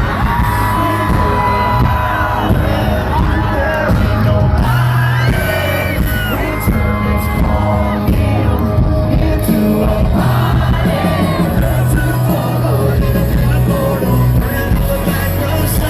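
Live country band playing loudly at an outdoor concert, with singing and crowd whoops over a steady bass beat.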